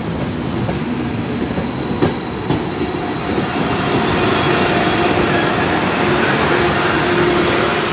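Frecciabianca passenger train rolling past at low speed, its wheels clicking and squealing on the rails. A steady hum grows louder about halfway through as the FS E414 electric locomotive at its tail comes by.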